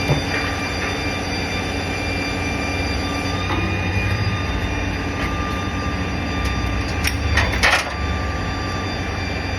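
Steady drone of running heavy machinery with a high whine, broken by a knock about three and a half seconds in and a short burst of metallic scraping and screeching near the end.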